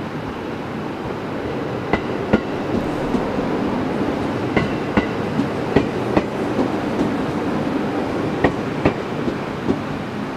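A JR East 701 series electric commuter train rolls slowly past over a steady rumble. Its wheels clack over the rail joints in pairs of clicks, one pair for each bogie.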